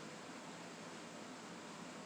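Steady faint hiss with soft rustling of kinetic sand being handled and crumbling.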